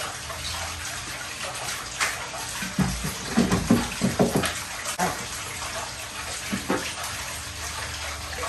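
Knocks and clunks of a small four-stroke outboard motor being lifted and hung on a boat's transom jack plate, most of them between about three and four and a half seconds in, over a steady hiss.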